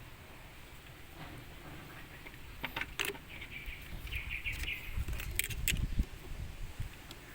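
Several short sharp clicks and knocks over a few seconds, with birds chirping in the background.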